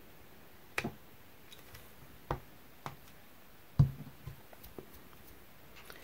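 A handful of sharp clicks and knocks of hard craft items handled on a tabletop, about six in all. The loudest is a dull thump nearly four seconds in.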